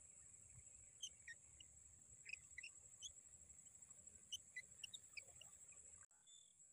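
Faint ambience of a steady, high-pitched insect drone with scattered short bird chirps over it. The drone drops abruptly about six seconds in.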